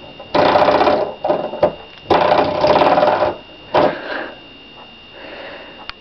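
Spring door stopper flicked by a baby's hand, giving a buzzing twang. It sounds in two bursts of about a second each and a short third one about four seconds in.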